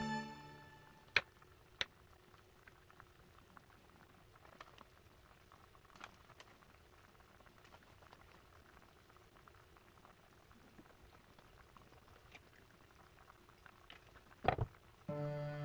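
A saucepan of Korean red pepper stew boiling hard, a faint, steady bubbling. A couple of sharp taps about a second in and a louder knock near the end.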